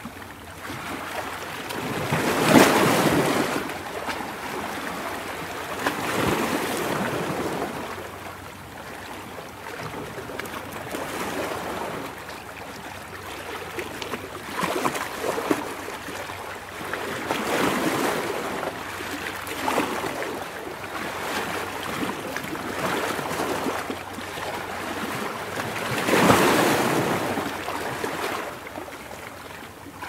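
Calm ocean surf: waves breaking and washing up the shore in a steady hiss that swells and falls every few seconds, with the strongest breakers about two and a half seconds in and again near the end.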